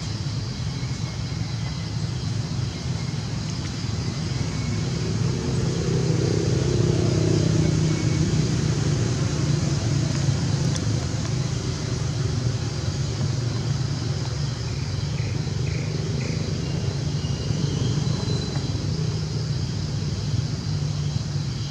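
Steady low engine rumble, growing a little louder about five seconds in, then settling back.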